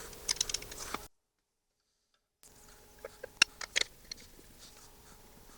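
Light clicks and taps of metal parts being handled while the belt grinder is assembled, scattered and irregular, over a faint steady hum. The sound cuts out completely for about a second and a half, then the clicking resumes with a few sharper taps.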